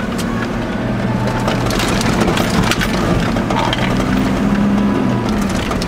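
Four-wheel-drive vehicle's engine running as it drives over a rough dirt track, heard from inside the cabin, with frequent knocks and rattles as it goes over the bumps.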